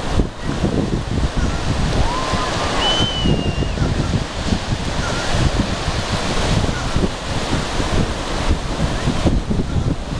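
Wind buffeting the microphone in loud, uneven gusts over a steady rush of ocean surf. A couple of faint, thin high glides come through about two to three and a half seconds in.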